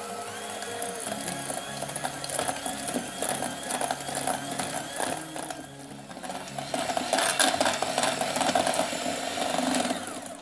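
KitchenAid electric hand mixer running, its wire beaters creaming softened butter and icing sugar in a stainless steel bowl and clattering against the bowl's sides. The motor stops shortly before the end.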